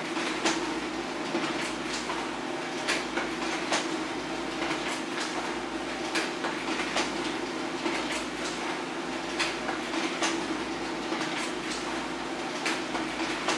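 HP LaserJet Pro M402d laser printer running a continuous print job: a steady motor hum with sharp clicks about once a second as sheets are fed through and ejected.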